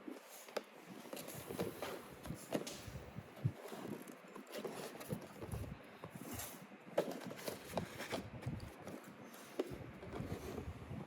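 Packaging handled during an unboxing: irregular taps, clicks and rustling, with a few sharper knocks.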